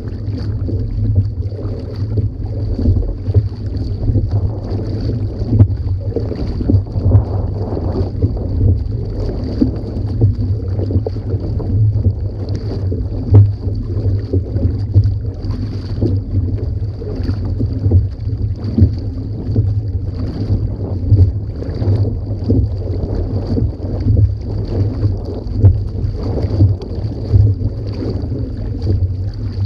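Kayak paddle strokes splashing in a steady rhythm, about one a second, over water rushing along the hull. Heavy wind noise on the microphone runs underneath.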